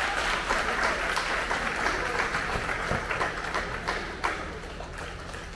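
Audience clapping, which tapers off about four seconds in.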